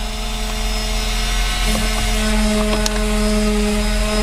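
Cordless electric screwdriver with a 7 mm socket bit running with a steady whine, backing a screw out of the plastic centre console trim.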